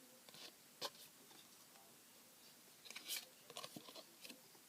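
Trading cards being handled and turned over: a few faint clicks and rustles, a sharper click about a second in and a cluster of small clicks near the end.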